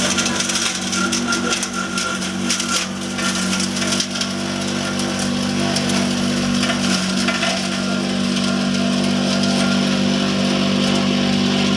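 Chopping and grinding machine running with a steady hum while its blades shred leafy green branches fed into the hopper. Dense crackling and snapping is heaviest in the first few seconds, then the machine runs on more evenly.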